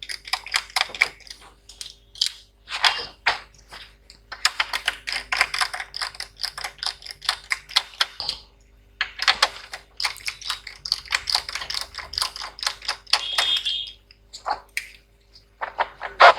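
Rapid runs of small sharp clicks in several bursts with short pauses between them: a screwdriver working on the small screws holding a laptop's cooling fan and heatsink to the motherboard.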